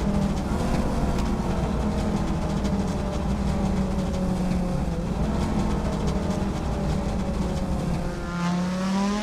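Audi Sport quattro S1's turbocharged five-cylinder engine running hard at fairly steady revs, with a faint steady high turbo whistle. Near the end the note dips briefly, then climbs steeply as the car accelerates.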